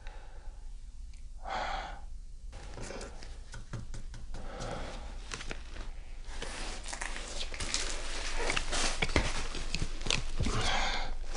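Close handling noise: rustling and clicking that grows busier, with a couple of sharp knocks near the end, and a breath or exhale heard twice.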